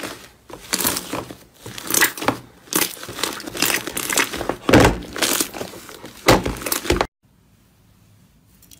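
Fluffy blue slime with small foam beads mixed in, squeezed and kneaded by hand: a run of crackling, squishing presses that cuts off suddenly about seven seconds in.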